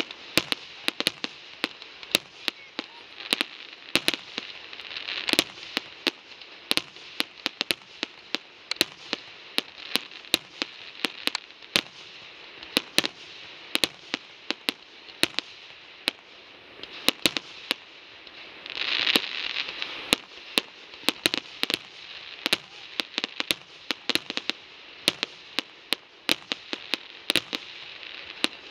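Fireworks display: aerial shells bursting in a rapid, irregular string of sharp bangs, several a second, over a steady hiss that swells briefly about two-thirds of the way through.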